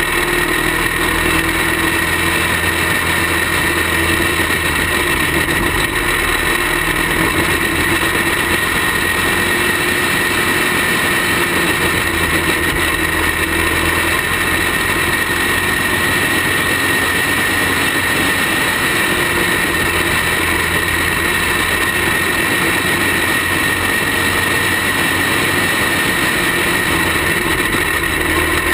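Caged racing kart's engine running hard at racing speed, heard loud and close from a camera mounted on the kart. Its pitch stays fairly level throughout.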